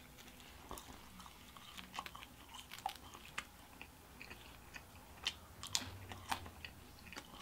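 A person chewing a mouthful of pizza, with irregular small crunches of crust and wet mouth clicks.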